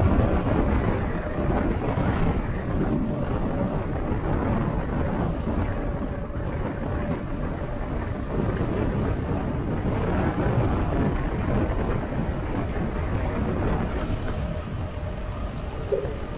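Wind buffeting the microphone of a rider moving along on an electric bike: a steady low rumble of rushing air, with a faint steady tone underneath.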